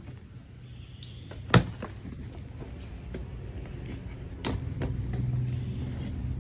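A sharp knock about one and a half seconds in and a lighter one about three seconds later, over a low steady hum that grows louder in the second half.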